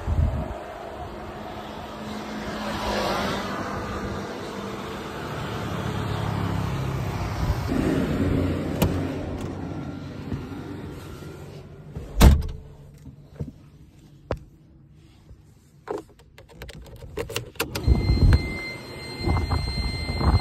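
Wind and phone-handling noise around a Tata Nano electric car, then a car door shutting with a loud thump about twelve seconds in, after which the sound goes much quieter, as from inside the closed cabin. A few clicks follow, then a steady electronic beep near the end.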